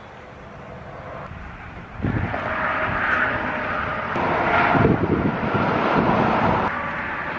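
A passing engine drone with a faint steady hum in it, swelling about two seconds in, loudest mid-way, and easing off near the end.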